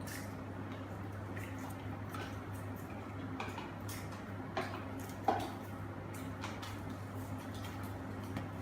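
Scattered light clicks and taps of small toy packaging being handled, the sharpest about five seconds in, over a steady low electrical hum.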